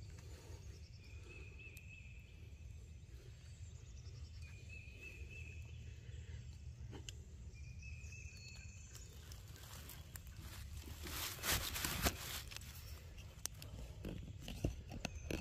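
Dry leaves and brush on the forest floor rustling and crackling, with a few knocks, starting about nine seconds in and loudest around eleven to twelve seconds. Before that there is only a faint low rumble and a short high trill, repeated three times a few seconds apart.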